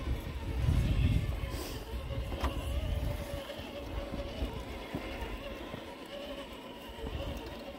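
Axial SCX10 II RC rock crawler's electric motor and gearbox whining steadily as the truck crawls over rock, with small clicks of tyres and chassis on stone. A low rumble is loudest about a second in.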